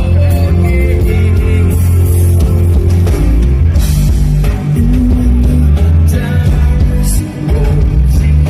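Live reggae band music played loud, with a heavy bass line and drums.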